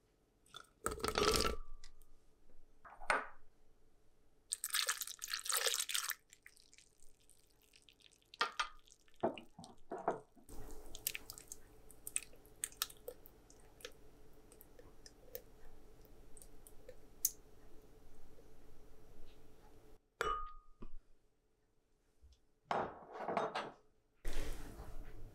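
Ingredients being added to a glass blender jar: a thick white dairy ingredient and then a thinner white liquid poured onto blueberries. Several short clinks against the glass and pouring splashes come at intervals, with quieter stretches between.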